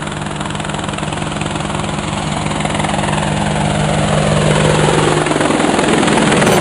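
Quadcopter drone rotors buzzing with a steady low hum that grows louder, a sweep falling in pitch over the last few seconds, then cutting off suddenly.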